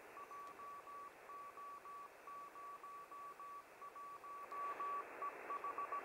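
GB3VHF 2 m propagation beacon sending its Morse code callsign ident, received through a web SDR: one tone keyed on and off in dots and dashes over steady receiver hiss.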